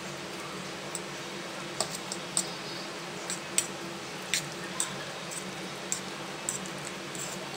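A metal spoon stirring a wet spinach, onion and lentil-paste pakora mixture in a bowl. It gives irregular clicks and taps as it scrapes and knocks the bowl, over a steady background hum.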